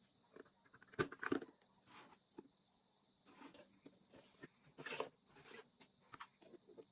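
Faint clicks and taps of small objects being handled, the loudest about a second in and again near five seconds, over a faint steady high-pitched hiss.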